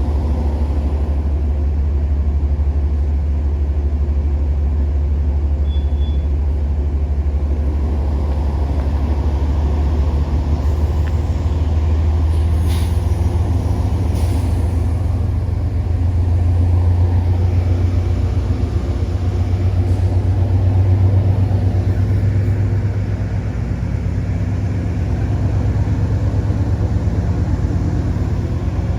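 Steady low rumble of a Metro-North train running, swelling a little about two-thirds of the way through, with a few sharp clicks near the middle.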